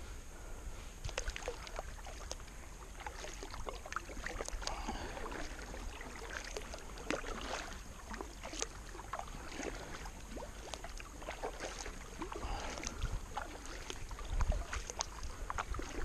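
Kayak paddle strokes: the blade dipping into and pulling through calm river water, with many small splashes and drips. A few louder low thumps come near the end.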